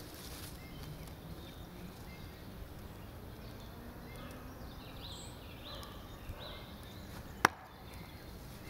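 A thrown Black Hawk throwing knife strikes the round wooden target with a single sharp knock about seven and a half seconds in. Faint bird chirps sound in the background before it.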